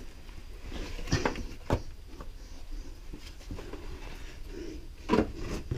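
Scuffs and scattered knocks of a person clambering over rock in a cave passage, with the sharpest knocks near the middle and near the end.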